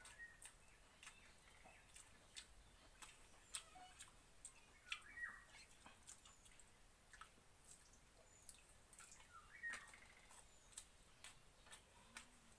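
Faint, irregular little clicks of eating water rice by hand: fingers working the rice in a steel pot, and chewing. A few faint short chirps come and go.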